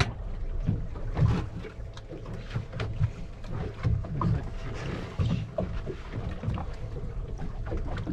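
Water slapping against the hull of an offshore fishing boat in a light chop, with irregular low thumps and small knocks.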